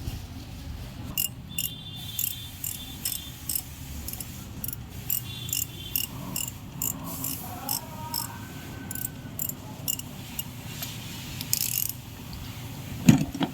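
Ratchet wrench clicking in short strokes, about two a second, as bolts are worked on the engine during a timing chain job. A loud thump comes near the end.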